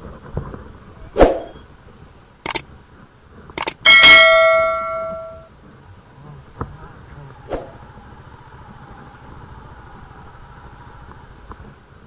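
A few sharp knocks, then a metal bell struck once about four seconds in, ringing with several clear tones and fading out over about a second and a half.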